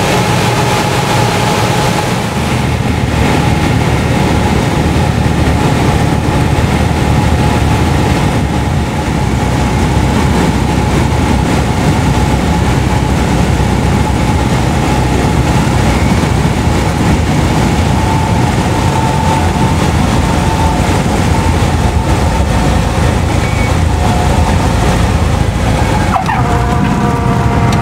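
Light high-wing airplane's piston engine and propeller running steadily, heard from inside the cabin as the plane comes in low over the runway to land.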